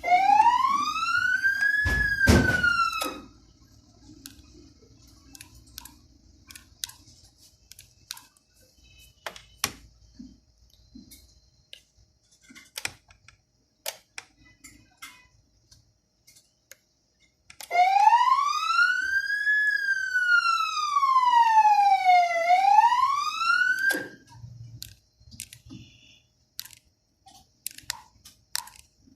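Code 3 electronic siren wailing through its speaker. The first wail rises, dips a little and cuts off about three seconds in. After a stretch of scattered clicks, a second wail starts about eighteen seconds in, rises, falls and rises again, then cuts off about six seconds later.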